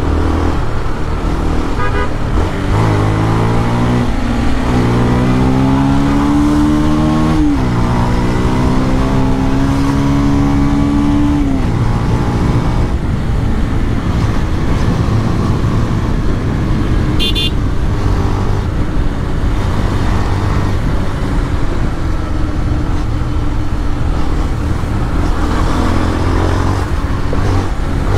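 Motorcycle with a modified exhaust accelerating hard, its engine note climbing twice with a drop at the gear change, then settling into a steady cruise buried in wind and road noise. A brief horn toot sounds about two-thirds of the way through.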